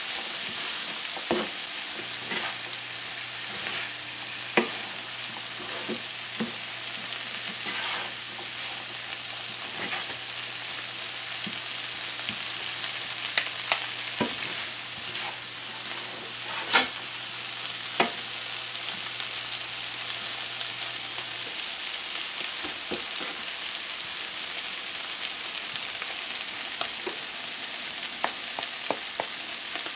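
Black-eyed peas with onions and scallions frying in oil in a nonstick frying pan: a steady sizzle, with a plastic spatula scraping and knocking against the pan now and then as they are stirred.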